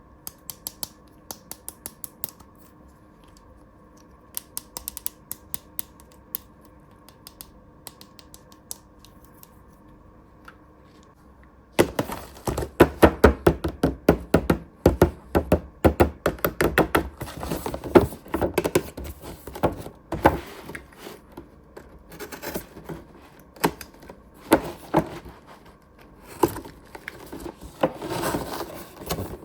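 Plastic toy pieces and packaging being handled: sparse light clicks at first, then from about twelve seconds in dense, louder clicking, tapping and rustling.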